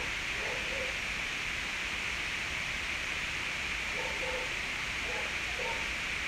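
Steady background hiss, strongest in the upper-middle range, with a faint, indistinct voice near the start and again about four seconds in.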